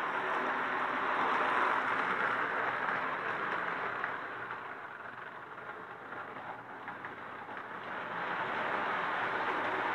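1936 Marx tinplate 0-4-0 electric locomotive and tin cars running on the track: a steady whirring clatter of motor gearing and wheels. It fades somewhat through the middle as the train moves farther away, then comes back up near the end.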